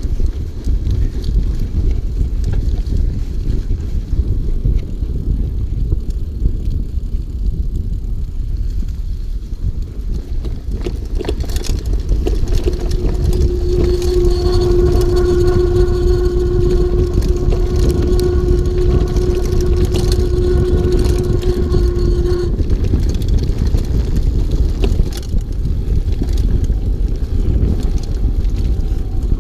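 Mountain bike rolling fast on a dirt trail, with a steady rumble of wind on the camera microphone and tyre noise. About twelve seconds in, a steady pitched whine with overtones starts and holds for about ten seconds, then stops.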